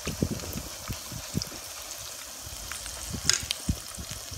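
Battered shrimp fritter deep-frying in hot oil: a steady sizzle, with a few light knocks and clicks of a metal spoon in the pan.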